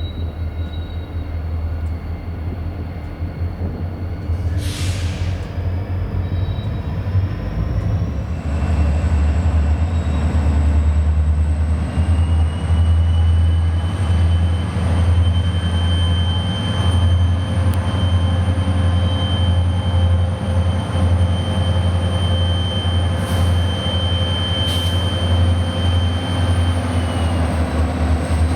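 A diesel freight train running close by. A deep locomotive engine rumble grows louder about eight seconds in, and a few seconds later a steady high-pitched squeal of steel wheels joins it and holds until near the end.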